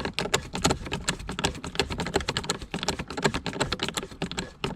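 Ratcheting driver with a Torx T20 bit clicking rapidly and unevenly as a dashboard trim screw is turned.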